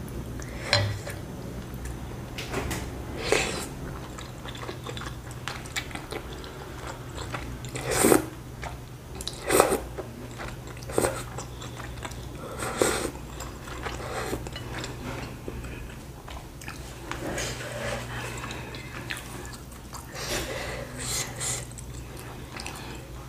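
Close-up eating sounds of wheat noodles (mie ayam): noodles slurped into the mouth and chewed, with a few louder slurps scattered among irregular small chewing noises.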